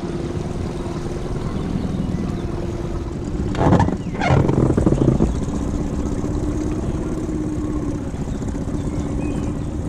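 Tohatsu 15 hp outboard motor running steadily, pushing the inflatable boat along at cruising speed. A brief louder noise comes about three and a half seconds in and lasts a second or two.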